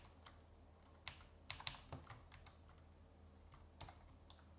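Faint computer keyboard typing: irregular single key clicks and short runs of keystrokes as code is entered.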